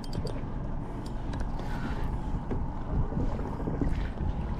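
Wind buffeting the microphone aboard a small fishing boat, a steady low rumble with a few light clicks and knocks scattered through it.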